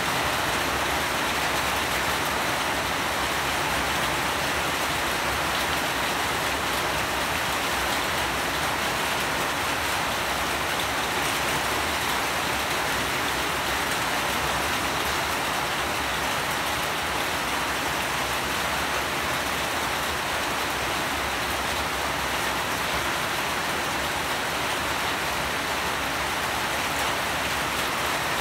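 Steady rain falling, an even, unchanging hiss of many drops.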